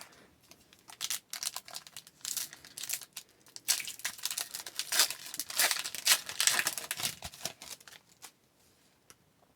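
A foil Upper Deck hockey card pack being torn open and its wrapper crinkled: a run of irregular crackles and rips that dies away about a second and a half before the end.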